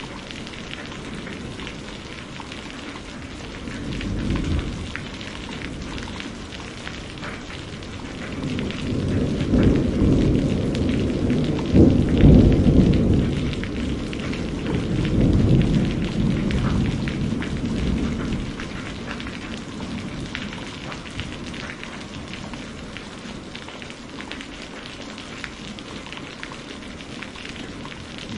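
Steady rain falling, with a short low rumble of thunder about four seconds in. From about eight seconds a long peal of thunder builds, peaks and dies away over some ten seconds before the rain carries on alone.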